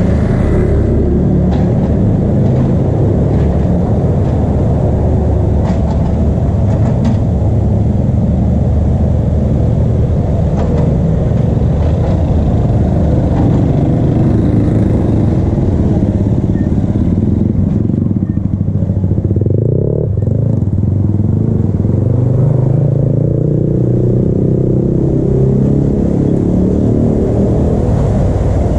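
Small motorcycles and scooters running past on a narrow road, a steady low engine rumble, with one passing close and louder about two-thirds of the way through.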